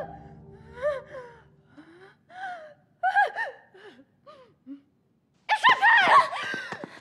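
A woman's short pained cries and gasps, several in a row, as medicine powder is put on her raw wound. Near the end a loud, agitated voice breaks in.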